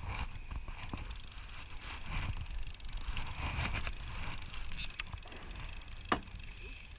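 Wind rumbling on the microphone over open water, with handling knocks and clicks from a rod and conventional fishing reel being gripped. A single sharp click a little after six seconds in is the loudest sound.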